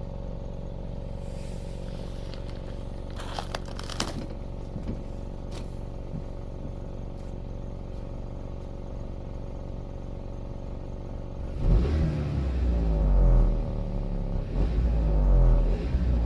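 Volkswagen Touran's 1.4 TSI four-cylinder turbo petrol engine on its factory exhaust, idling steadily, with a few sharp clicks about three to four seconds in. From about twelve seconds on it is revved repeatedly, the pitch rising and falling with each rev.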